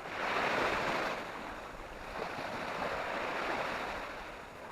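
Waves washing onto a beach, the surf swelling and easing.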